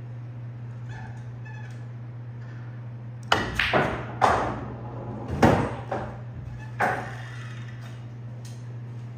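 Pool balls on a sinuca table clicking and knocking during a shot: about six sharp knocks over three and a half seconds, starting about three seconds in, over a steady low hum.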